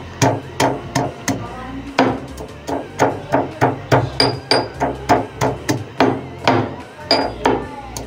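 Pestle pounding garlic cloves and ginger in a marble mortar: a steady run of sharp knocks, about three a second.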